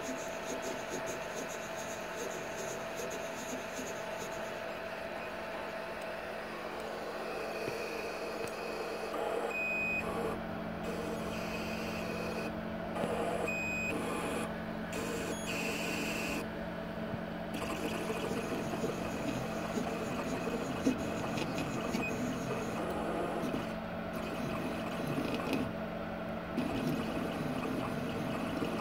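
Stepper motor on a converted Boss 5 CNC mill, run from a modern stepper driver set to 400 microsteps. It gives a steady electrical hum, and a lower hum sets in about a third of the way through. Short high whines come and go as the motor is stepped.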